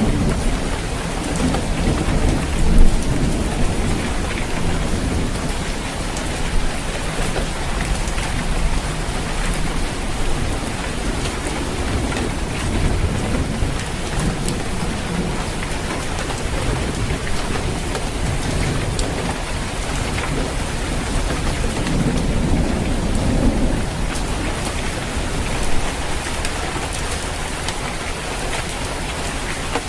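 Steady rain falling on a roof, a dense even patter, with low rumbles of thunder underneath, one swelling about three quarters of the way through.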